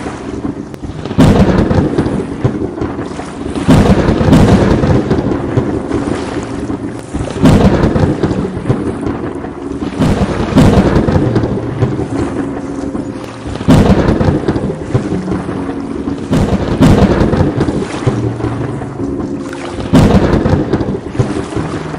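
Thunderstorm with steady rain, broken by about seven loud thunderclaps, roughly one every three seconds. Each clap starts suddenly and rumbles away.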